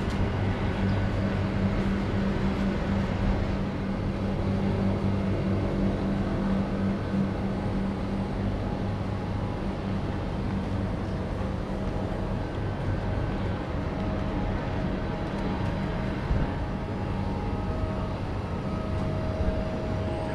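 Steady street background with a low hum that is strongest for the first several seconds, then fades.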